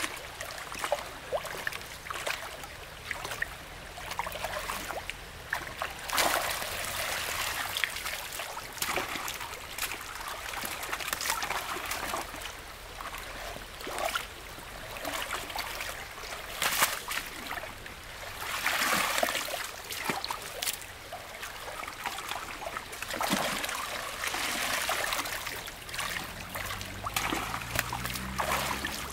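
Shallow water splashing and trickling, with irregular louder splashes over a steady running of water. A faint low hum rises in pitch near the end.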